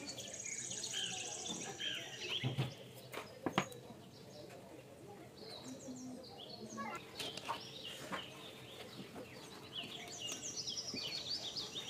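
Birds chirping and twittering in the background, in short repeated calls that come in flurries near the start and again towards the end. A few sharp clicks and light rustling from hands handling wire and heater parts, the loudest click about three and a half seconds in.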